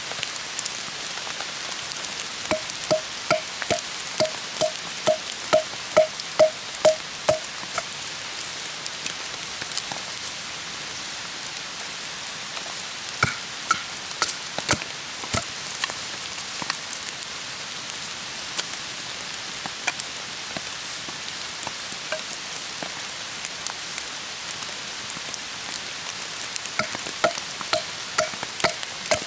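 A wooden baton knocking on the spine of a Solognac Sika 130 Grip knife, driving its 4 mm blade down through a log to split it (batoning). There is a quick even run of about a dozen hollow knocks in the first few seconds, a few scattered knocks in the middle, and another short run near the end. Steady rain hisses underneath.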